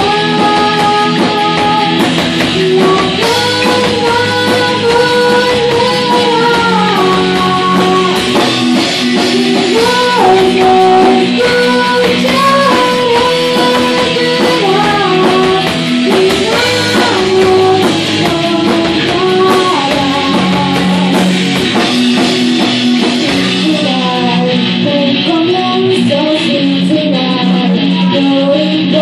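Live amateur rock band playing: electric guitars through Marshall amplifiers and a drum kit, with a melodic lead line held over the accompaniment. About 24 seconds in, the top end thins out.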